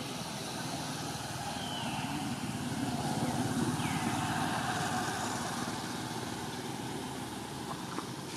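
A motor vehicle passing by, its engine noise swelling to its loudest a few seconds in and then fading. A few short, high, falling chirps sound above it.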